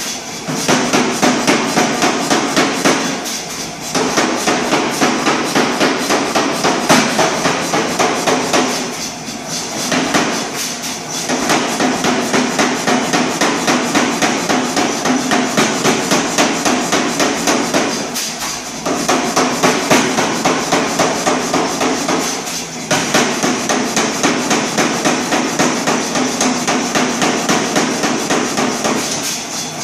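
100 lb Reiter air power hammer striking a red-hot 1045 steel bar held in tongs, a rapid steady run of heavy blows with a few short pauses.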